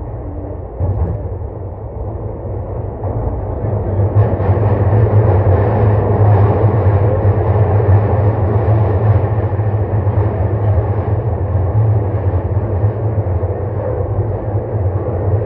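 Sotetsu 21000-series commuter train's running noise heard from inside the car as it rolls through a subway tunnel, a steady rumble that gets louder about four seconds in.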